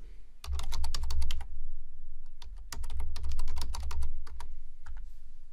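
Typing on a computer keyboard: two quick runs of keystrokes, a username and then a password, with a few single key presses after, over a low rumble.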